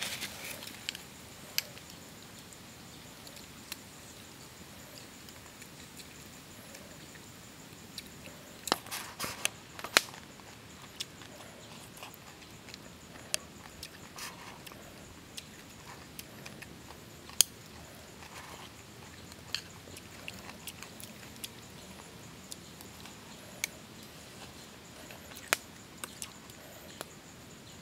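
A person eating: a metal spoon clicks sharply against the bowl and plate now and then, between quiet chewing.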